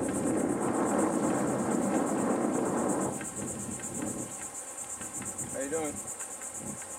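Insects in the forest keep up a steady, high, pulsing buzz. A low rushing noise is louder over the first three seconds and then drops away, and a short call is heard near the end.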